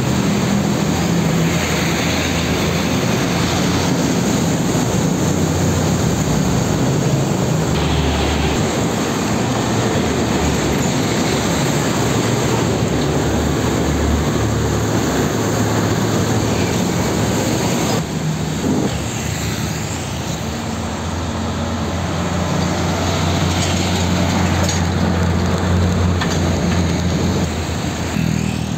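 Heavy diesel trucks driving past on a wet road: a steady low engine drone with tyre hiss from the wet surface.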